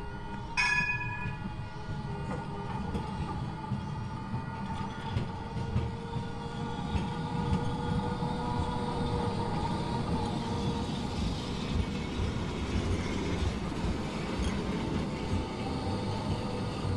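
Bombardier Flexity Classic light-rail tram pulling out of its depot and passing close by, its running gear giving a steady low rumble on the track. A single short ringing ding sounds about half a second in.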